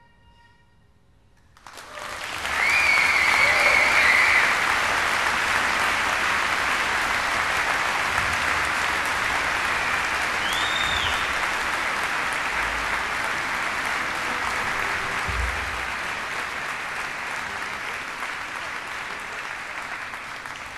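Concert audience applauding, starting abruptly about two seconds in after a brief hush, with two shrill whistles from the crowd, one early and one about halfway. The clapping eases off slightly near the end.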